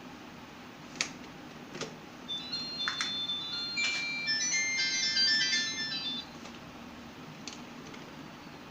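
Mobile phone's startup jingle: a run of short, bright electronic notes lasting about four seconds, played through the phone's small speaker as it boots on the revived battery. A few sharp clicks come before and after it.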